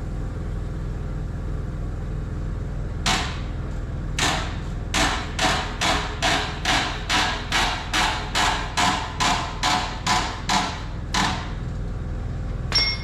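Hammer striking metal, about seventeen blows at roughly two a second, each ringing briefly, over a steady low hum. A single sharp metallic clink near the end.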